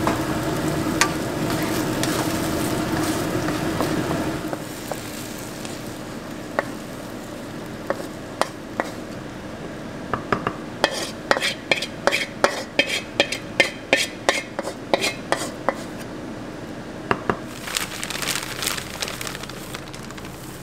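Risotto sizzling in a wok as a wooden spatula stirs it; the sizzle stops after about four seconds. Then a quick run of sharp taps and scrapes as the wooden spatula knocks rice from the wok into a ceramic bowl, with a few more taps near the end.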